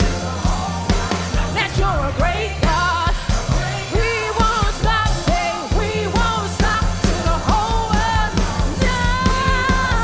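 Live gospel praise-and-worship singing: a woman's lead voice with ornamented, sliding runs, joined by female backing singers, over accompaniment with a steady bass and beat.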